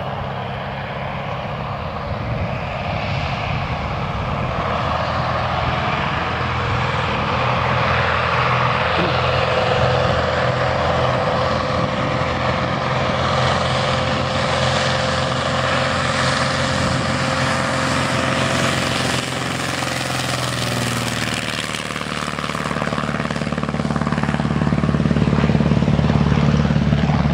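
Velocity canard kitplane's piston engine and pusher propeller running steadily as the plane rolls along the runway, then getting louder over the last few seconds as power comes up for the takeoff run.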